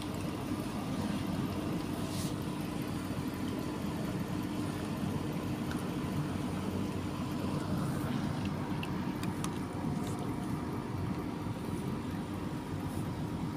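A steady low mechanical hum and rumble with a constant drone, and a few faint ticks over it.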